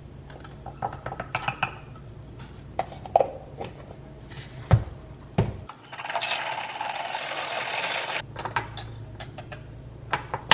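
Powder scoop and ice clinking and tapping against a glass jar, with a couple of dull knocks. Then a handheld milk frother whirs steadily for about two and a half seconds, mixing greens powder into iced water. A few more clinks of the wand against the glass follow.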